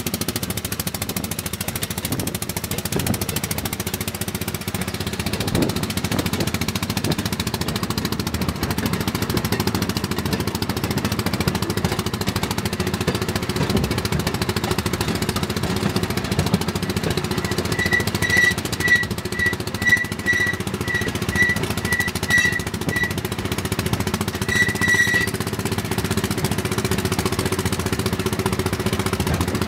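Rail motor car (track speeder) engine running with a rapid, steady clatter as the car rolls along the track. A run of short high-pitched beeps sounds from about 18 to 23 seconds in, and again briefly near 25 seconds.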